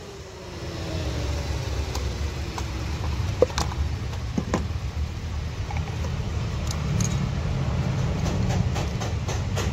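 An ignition coil and its wiring connector being handled and refitted on a petrol engine's cam cover, with a few sharp plastic clicks about three and a half and four and a half seconds in, over a steady low rumble.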